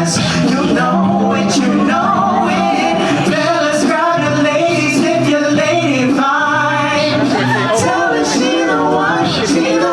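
Male a cappella group singing in harmony over a sung bass line, with vocal percussion keeping the beat.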